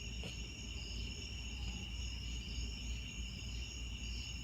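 A steady chorus of insects trilling on constant high pitches, over a low steady hum. A faint click sounds about a quarter second in.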